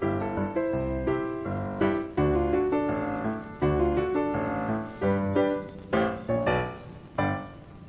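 Background piano music, single notes and chords struck one after another.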